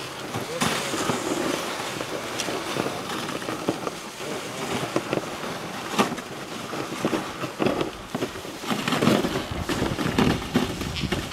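Dog sled runners sliding and scraping over snow in a steady rough hiss, with sharp knocks and rattles from the sled, one strong one about six seconds in, and wind on the microphone.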